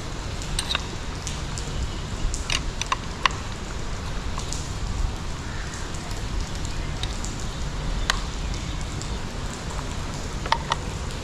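Scattered light clicks and taps of hand work on a motorcycle's mirror and handlebar parts, over a steady background hiss.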